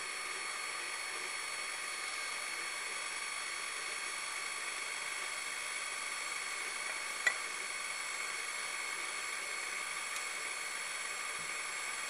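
KitchenAid stand mixer with a dough hook running steadily, a constant motor whine, as it works liquid into flour for bread dough. A single sharp click about seven seconds in.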